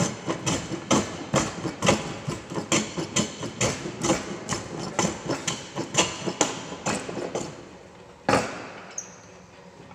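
Jack plane shaving a wooden workpiece in quick repeated strokes, about two or three a second. The strokes stop a couple of seconds before the end, and a single loud knock follows.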